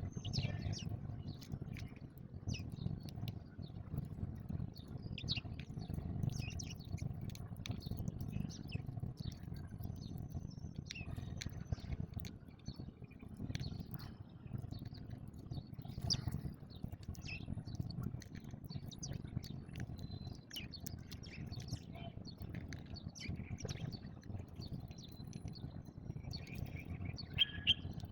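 House sparrows chirping: many short, sharp chirps from several birds, coming irregularly throughout, over a steady low background rumble.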